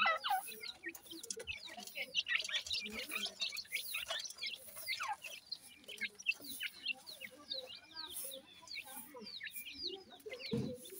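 Francolin chicks peeping: many short, high, falling chirps, overlapping and repeated, with a short low thump near the end.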